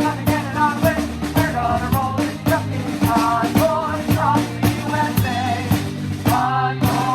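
Band playing a seventies rock tune with a drum kit keeping a steady beat under a moving melodic line. About six seconds in, the music changes to sustained held chords.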